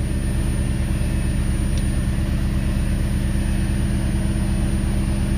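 Ford Mustang engine idling steadily, running in failsafe mode with its fuel rail pressure sensor unplugged.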